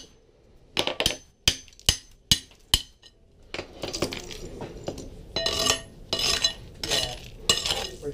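Hammer striking a hand chisel to break ceramic floor tiles off by hand: about six sharp metal strikes in the first three seconds. Then comes scraping and clinking as broken tile shards are pried up and knocked loose, in bursts about twice a second.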